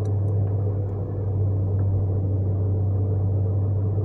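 Car engine and tyre noise heard from inside the cabin while driving uphill: a steady low drone.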